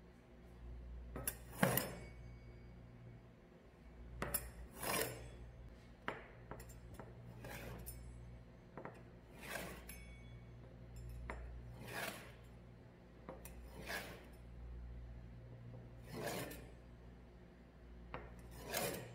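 Metal pizza-wheel cutter rolling along the edge of a steel ruler through thin dough, cutting it into diamonds: a short scraping stroke every second or two, with a low steady hum underneath.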